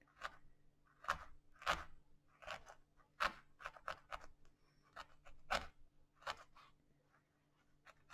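Felting needle stabbing through wool roving into a felting board: faint, irregular soft crunches, about one or two a second, as loose fibres are felted in.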